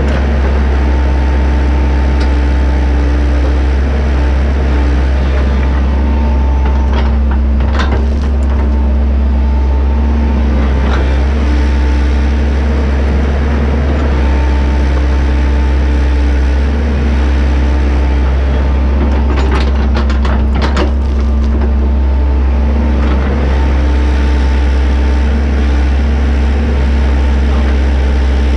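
JCB JS130 tracked excavator's diesel engine running steadily under load while it digs and slews. Some of its steady tones drop out and return as the work changes. There are sharp knocks about 7 to 8 seconds in and again around 20 seconds.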